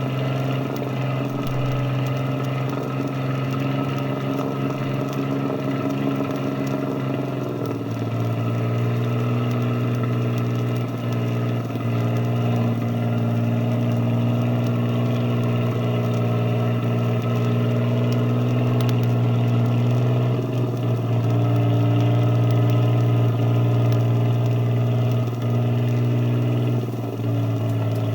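A river boat's engine runs steadily with a low, even drone. Its note shifts slightly and grows a little louder about a quarter of the way in, then changes again near the end.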